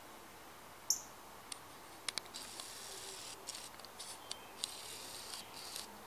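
Small backyard songbirds chirping: a sharp high call about a second in, then a run of quick, high-pitched chirps and twitters from about two seconds in.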